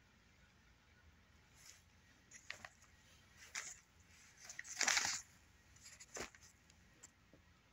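Newspaper pages rustling and crinkling as they are handled, in about five short rustles, the longest and loudest about five seconds in.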